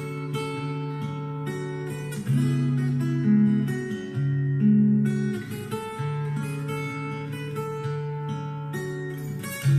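Acoustic guitar music played back through Panasonic SB-PM770 loudspeakers, with plucked and strummed notes over a steady run of deep bass notes.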